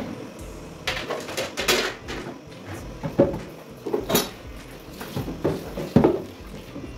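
Dishwashing clatter at a stainless steel sink: a plastic basin knocks against the sink several times at irregular intervals, with short splashes of running tap water.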